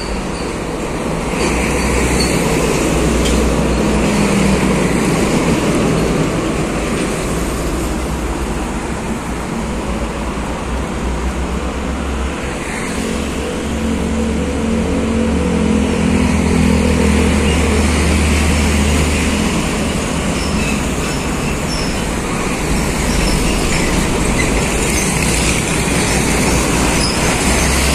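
Busy road traffic: heavy diesel container trucks and motorcycles passing close by in a steady stream. The trucks' engine rumble swells about two seconds in and again about halfway through.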